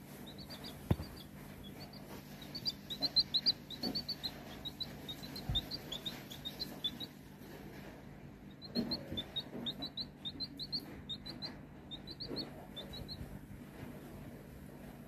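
Young chick peeping: quick runs of short, high peeps, broken by a pause about halfway through. A soft knock about a second in.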